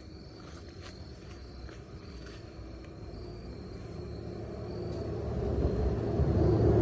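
A road vehicle approaching, its low rumble growing steadily louder over the last few seconds, over a steady high insect buzz.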